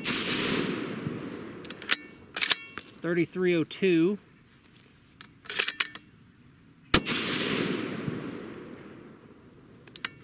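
Two shots from a custom 6.5 Creedmoor bolt-action rifle fitted with a muzzle brake, about seven seconds apart, each echoing away over a couple of seconds. Sharp metallic clicks of the bolt being cycled fall between the shots.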